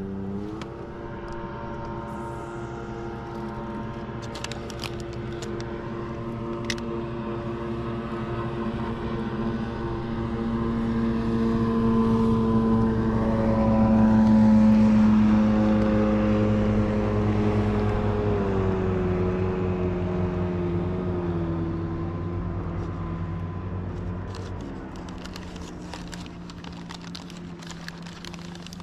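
A boat engine running steadily, swelling louder toward the middle and then easing off with a drop in pitch. A few light clicks near the start and again near the end.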